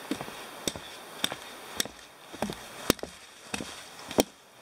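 Trekking pole tips clicking sharply on a hard trail surface about every half second, with duller footsteps, as two hikers walk past close by.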